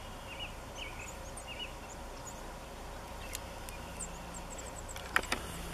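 Open-country ambience: small birds chirping now and then over a low steady hum, with a few sharp clicks near the end. No drilling-rig noise, since the rig is not yet operating.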